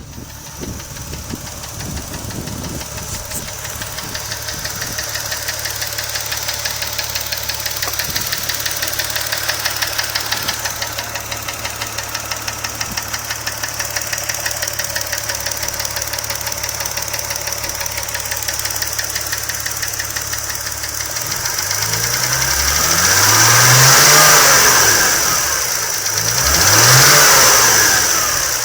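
Toyota 1JZ-GTE turbocharged 2.5-litre inline-six idling with a rapid, even metallic knock, which the owner locates around cylinders 5 and 6. Near the end it is revved twice, rising and falling each time.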